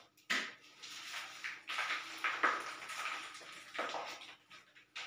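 Rags rubbing over freshly laid ceramic wall tiles to clean off mortar smears, in a series of short swishing strokes about a second apart, with a sharp knock about a third of a second in.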